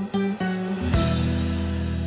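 Background guitar music: a short run of plucked notes, then a final chord about a second in that rings on and slowly fades.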